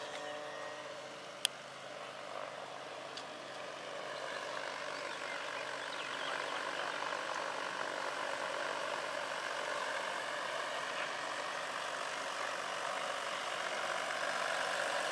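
Large-scale electric RC model helicopter, an AS-350 Ecureuil with a 2.5 m main rotor, in flight: a steady whirr of rotor blades and electric drive that grows louder as it approaches. A single sharp click about a second and a half in.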